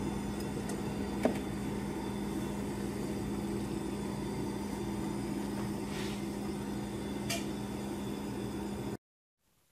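Steady low hum of an open refrigerator, with a light knock about a second in and two faint crinkles of plastic near the end as a kitten paws at bagged food on the shelf. The sound cuts off suddenly just before the end.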